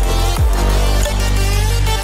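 Electronic dance music with a heavy bass and deep bass hits that fall quickly in pitch.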